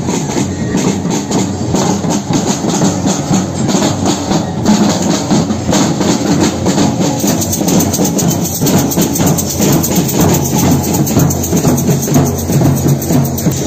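Parade drum troupe playing a fast, steady rhythm on snare drums and other marching drums, many sticks striking together.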